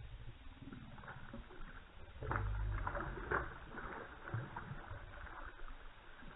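Water splashing and sloshing beside a fishing boat, in a run of short irregular splashes, with a dull low thump about two seconds in.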